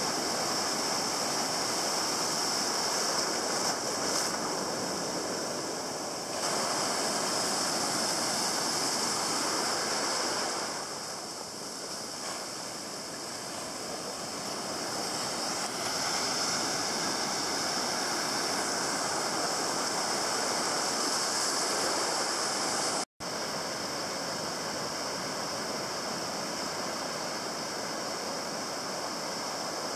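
Ocean surf: waves breaking and foam washing through the shallows in a steady rushing hiss. It cuts out for an instant about three quarters of the way through.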